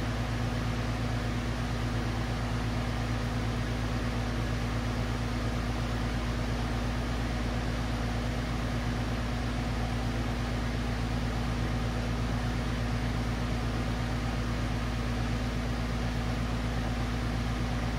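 Gas brazing torch flame hissing steadily, over a constant low machine hum.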